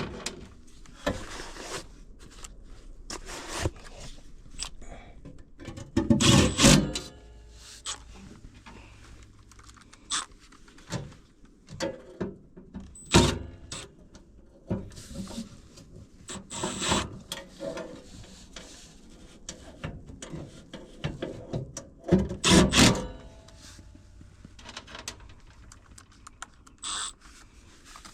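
Hand work on a furnace's inducer motor mounting: scattered clicks and knocks of tools, screws and metal parts, with two louder bursts of about a second each, about six seconds in and again near the end.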